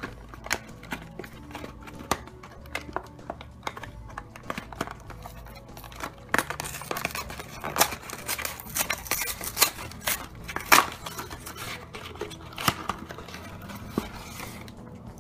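A cardboard Kinder Surprise egg box is handled and torn open, with sharp taps and clicks throughout. From about six to eleven seconds in there is a denser stretch of tearing and crinkling of cardboard and the eggs' foil wrapping.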